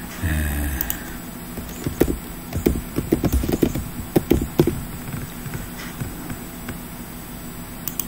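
Computer keyboard being typed on: a quick run of key clicks, followed by a few separate clicks.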